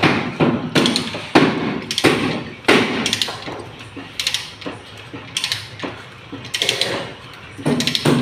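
Plumber's hand tool being worked on a metal pipe clamped in a vise: a run of sharp metallic clicks and scrapes, about two a second and uneven.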